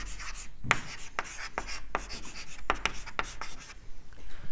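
Chalk writing on a chalkboard: a quick run of short scratches and taps, one per stroke of the letters, stopping near the end.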